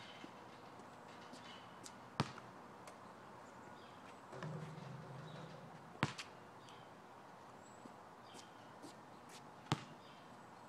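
A basketball hitting hard, three single sharp thuds a few seconds apart, with no dribbling rhythm between them.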